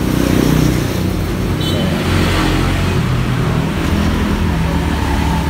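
A motor vehicle engine running close by, steady and loud, amid road traffic noise.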